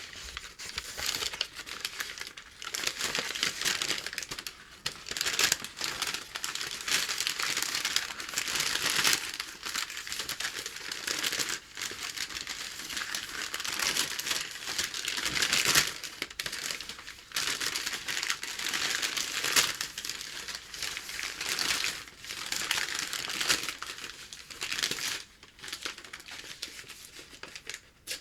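A sheet of packing paper crinkling and crackling as it is handled by hand, with a few brief pauses.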